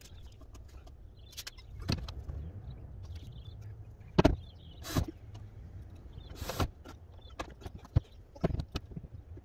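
Sharp knocks and clunks of wood and tools as a wooden shed door frame is fitted, about seven scattered hits with the loudest a little over four seconds in, over a low steady rumble.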